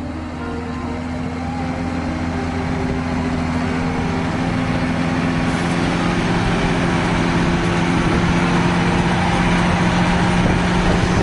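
A heavy vehicle's engine running steadily at a fixed pitch, growing gradually louder.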